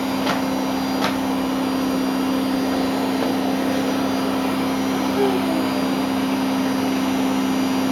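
Vacuum cleaner running steadily, a constant motor hum over a hiss of rushing air, with a couple of faint clicks about a second in.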